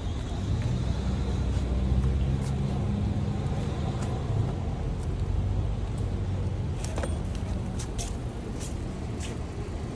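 A motor vehicle's engine rumbling past over steady traffic noise, loudest about two seconds in and then fading. A few sharp clicks come near the end.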